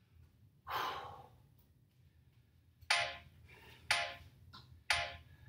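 Interval timer counting down the last three seconds of a rest period: three short beeps about a second apart, each with a short ringing tail. A brief noisy sound comes less than a second in.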